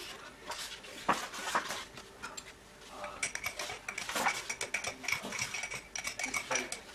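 A metal teaspoon stirring a latte in a glass, clinking rapidly against the glass with a light ringing tone from about three seconds in. Before that, a few rustles and flaps of magazine pages being turned.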